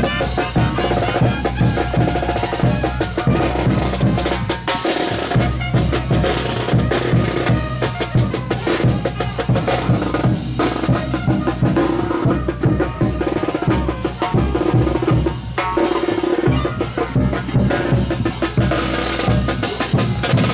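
Live festival band music driven by drums, bass drum and snare keeping a steady dance beat, with held instrument tones over it.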